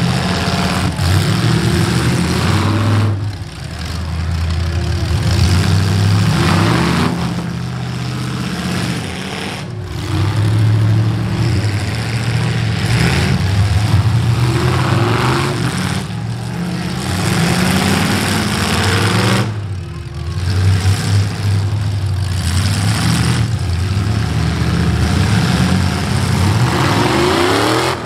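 Several V8 demolition-derby cars' engines running loud and revving, rising and falling in pitch as the cars drive around the arena.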